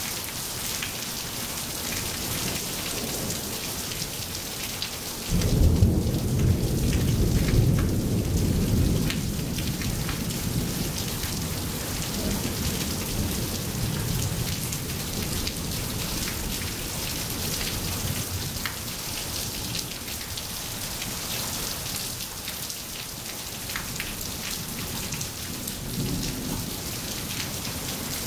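Steady rain falling, with a rumble of thunder that breaks in suddenly about five seconds in, is loudest for a few seconds and fades slowly. Another rumble of thunder starts near the end.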